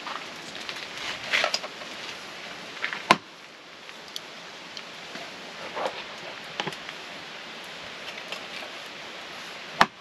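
Two sharp knocks, one about three seconds in and one just before the end, over a steady background hiss with scattered small clicks and rustles.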